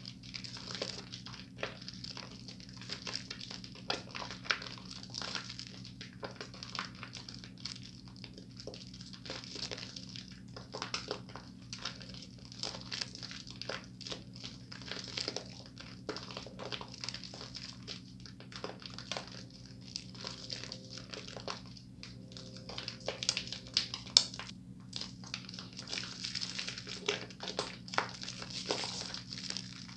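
Wet squishing and crackling of thick soap lather as hands rub and squeeze a bar of soap, in quick irregular strokes, with one sharper squelch about three quarters of the way through. A steady low hum runs underneath.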